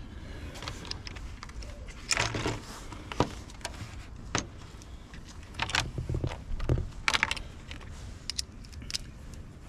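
Small metal sockets and Torx bits clinking and rattling in a plastic socket-set case as they are picked through, in a series of short clatters.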